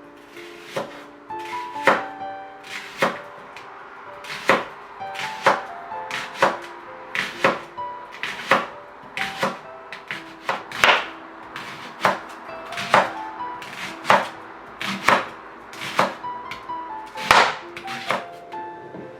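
Knife chopping on a cutting board in separate strokes, about one a second, over background music with a gentle melody.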